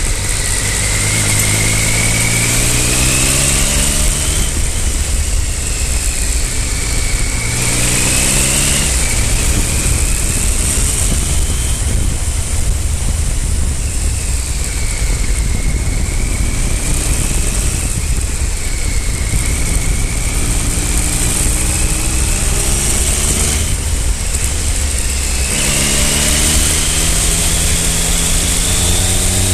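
Triumph Speed Triple 955i's inline-three engine under way, revs climbing several times as it pulls through the gears and easing off in between, with a high whine that rises and falls with the revs. Heavy wind rush on the microphone throughout.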